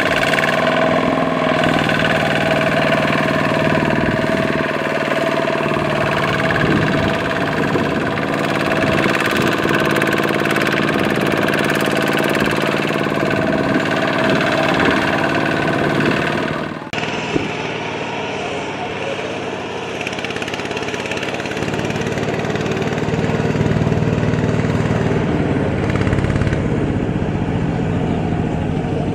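Kubota ZT120 single-cylinder diesel engine of a two-wheel walking tractor running steadily while hitched to a rice-laden trailer stuck in mud. The sound changes abruptly a little over halfway through and is slightly quieter after.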